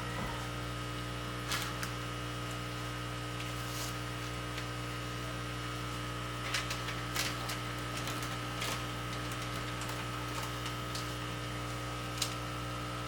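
Steady electrical hum from fish-room equipment, with a few short sharp clicks scattered through it.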